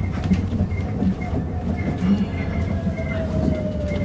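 Cabin sound of an electric city bus on the move: low rumble with scattered rattles and clicks, over a thin electric drive whine that slides slowly down in pitch.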